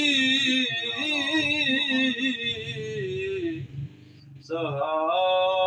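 A man singing Punjabi Sufi kalam solo, in long melismatic phrases with wavering held notes. He breaks off for a breath just before the fourth second and starts again on a new sustained note.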